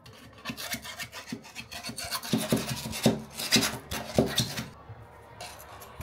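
Wooden stick stirring and scraping sand mixed with sodium silicate binder in a cup: a run of gritty scraping strokes, loudest in the middle, that stops about a second before the end.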